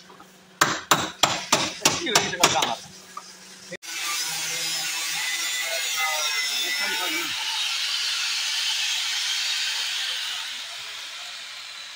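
Hammer driving a flat chisel into a car's sheet-metal quarter panel: about eight quick metallic strikes in two seconds, cutting the old panel away for replacement. After that comes a steady hiss that eases off near the end.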